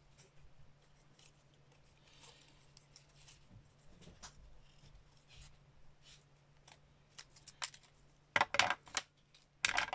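Small spring-loaded craft scissors snipping around a stamped paper cut-out: faint, scattered little cuts, then two louder bursts of sharp clicks near the end.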